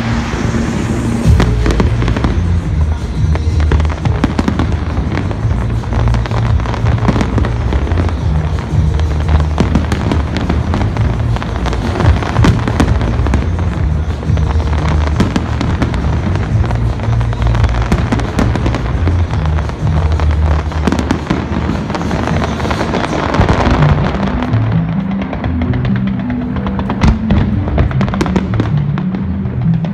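Large fireworks display: dense, continuous bangs and crackling of shells bursting, over loud bass-heavy music from the show's soundtrack.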